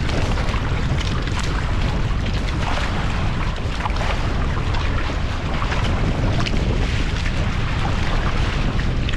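Wind buffeting the microphone in a steady low rumble, over water hissing and splashing along the hulls of a Hobie Cat catamaran under sail.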